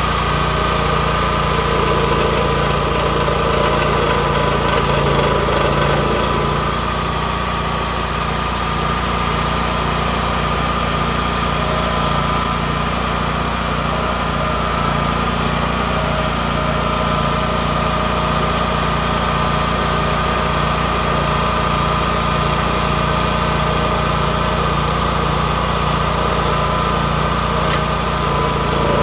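Rayco RG 1625 stump grinder's air-cooled gasoline engine running steadily, not cutting, with a steady high tone over the engine note. It drops slightly in level about seven seconds in.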